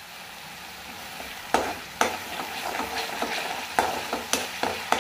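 Onion masala paste sizzling in oil in a kadhai while a slotted metal spatula stirs and scrapes it, with several sharp clicks as the spatula knocks against the pan.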